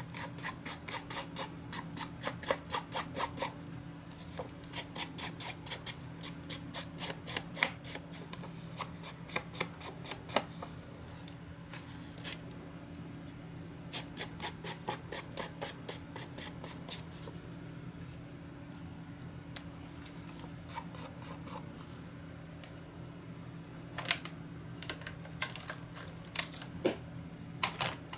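An ink pad rubbed in quick strokes along the edges of a cardstock panel to ink them, about four strokes a second in several runs with pauses. A few sharper clicks and taps come near the end, under a steady low hum.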